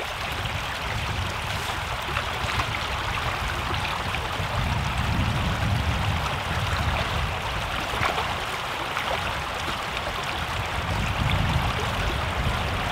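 A small creek running fast over a shallow riffle: a steady rush of water.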